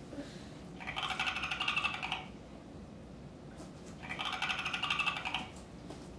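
Perry the Platypus plush toy sounding Perry's rattling chatter through its small speaker, twice, each burst about a second and a half long.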